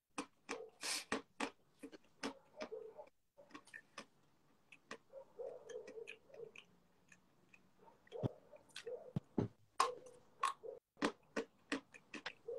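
Crunching and chewing of chalk close to the microphone: a run of sharp, irregular crunches, thinning out in the middle and picking up again towards the end.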